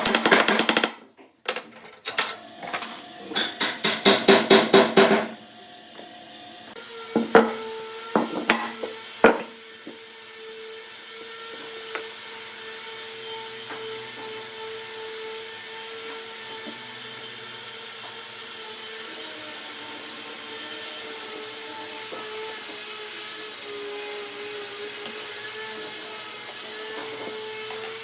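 A few seconds of rhythmic music, then a wood lathe running with a steady hum. There are a few sharp knocks soon after the hum begins.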